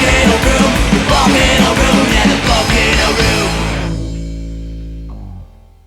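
Rock band playing its song's closing bars, then stopping on a final held chord that rings out and fades, cut off just before the end.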